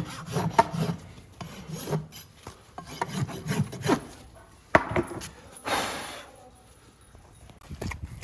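Farrier's rasp filing a horse's hoof in a series of short scraping strokes, with one longer stroke about six seconds in, then quieter.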